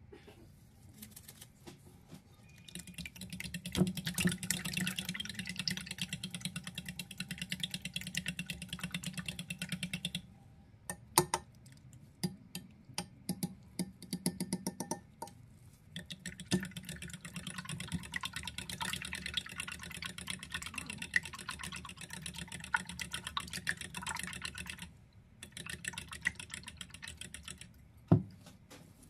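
Raw eggs being beaten in a glass bowl: rapid clicking and tapping of the utensil against the glass. It comes in two long spells separated by a few seconds of slower, single taps, with one louder knock near the end.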